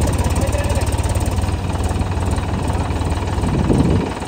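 Mahindra tractor's diesel engine running, a rapid, even low beat, with a brief louder swell near the end.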